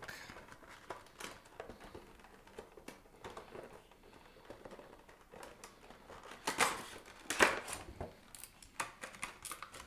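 Cardboard and plastic packaging handled: a Pop! figure box sliding out of a cardboard sleeve and out of its clear plastic protector case, with rustling, scraping and small clicks. A few louder scrapes come about two-thirds of the way in.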